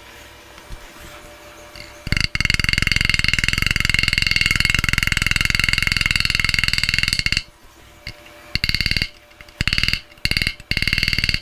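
A hammer striking a steel bearing driver in very rapid succession, driving a new rear wheel bearing into a motorcycle wheel hub. The strikes run together into a loud ringing rattle from about two seconds in, break off after about seven seconds, then return in shorter bursts with pauses.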